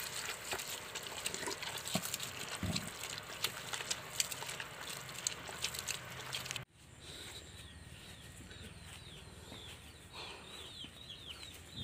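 A hand kneading a wet mash of chopped greens in a plastic basin: wet squelching with small clicks. After an abrupt cut about two-thirds of the way in, chickens cheeping in repeated short, falling chirps.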